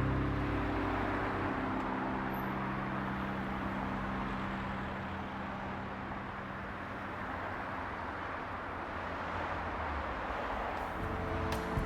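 Steady road and engine noise of a car on the move. Background music fades out at the start and comes back in near the end.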